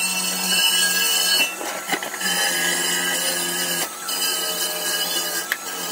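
Handheld drill spinning a wire wheel against a stamped-steel transmission pan, stripping off old gasket material. The motor's whine holds steady, dipping briefly a few times.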